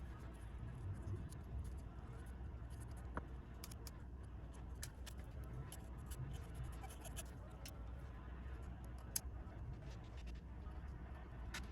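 Faint scratching and light clicks of a paint pen's tip working on small cast ResinCrete pieces, scattered and irregular over a low steady hum, with one sharper click about nine seconds in.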